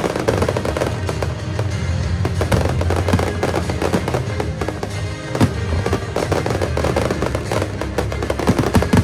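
Aerial fireworks bursting, many sharp bangs and crackles in quick succession, over loud music with a steady low bass line.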